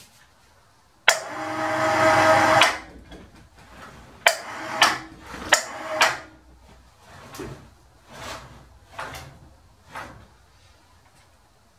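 Electric hoist motor running for about a second and a half, then jogged in four short bursts, as a large four-jaw lathe chuck is lowered onto the spindle. A few lighter metal knocks follow as the chuck is worked into place.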